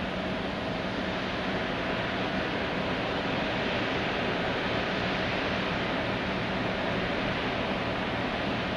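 Steady machinery drone from the dredger carrying the Liebherr P995 backhoe, a constant hum under a wash of wind and sea noise.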